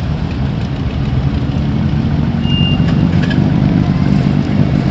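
Classic cars driving slowly past one after another, a steady low engine drone that grows a little louder.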